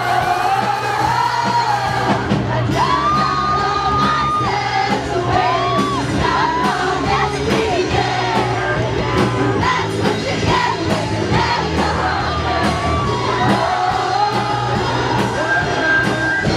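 Live band playing loudly with a vocalist singing over a sustained bass and a steady drum beat, and the crowd whooping and yelling along.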